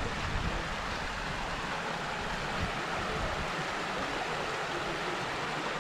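Steady rushing noise of wind on the camera microphone of a moving side-by-side UTV, with a low engine rumble underneath that is strongest at the start.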